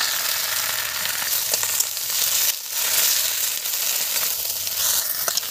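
Leafy greens sizzling as they stir-fry in a metal wok over a wood fire, with light clicks of a metal spatula turning them in the pan. The hiss dips briefly about halfway through.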